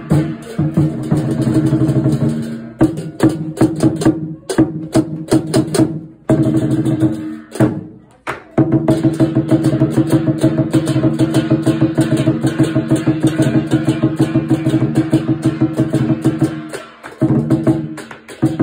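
Chinese lion dance drum beaten with sticks, together with the troupe's ringing percussion, in a fast driving beat. The playing breaks off briefly a few times in the first half and once more near the end.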